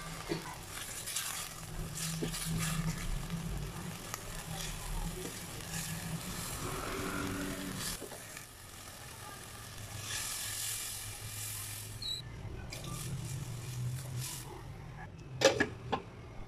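Chicken pieces sizzling as they sear in oil in a stainless steel pot, a steady hiss with small crackles over a low hum. Near the end comes a short, sharp clatter of metal or glass.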